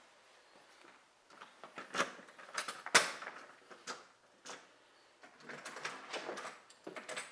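Door hardware working: a series of clicks, knocks and rattles from a lock and handle, with one sharp knock about three seconds in.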